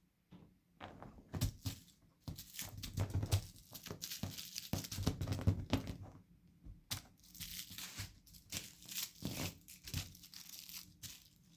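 Crinkling and rustling of a crinkly material, in irregular bursts with brief pauses between them.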